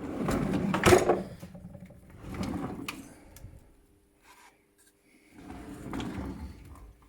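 Handling noise in a tool cabinet: three bouts of sliding and clunking, like a drawer or shelf being moved. The loudest is a sharp knock about a second in.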